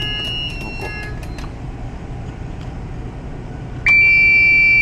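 Ship's engine-room machinery running with a steady low din. Intermittent electronic beeping stops in the first second and a half. About four seconds in, a loud steady alarm buzzer tone starts and lasts a little over a second; the engineer reads it as a pressure alarm.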